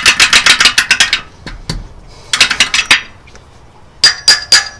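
Hand socket ratchet clicking in quick runs as it is swung back on a manifold bolt, twice, then a few sharp ringing metal clinks near the end.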